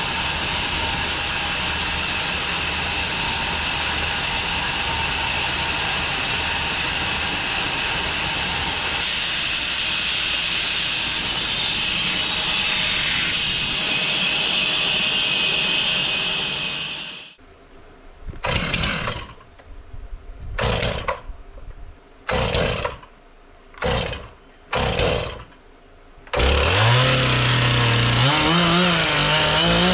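Bandsaw mill running and sawing through a log, a loud steady sound that stops abruptly about seventeen seconds in. Several short separate bursts of the same kind follow. Near the end an engine runs with its pitch rising and falling.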